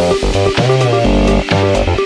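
Electronic intro music: a fast, choppy synth line over a hard beat, with a warbling note about halfway through.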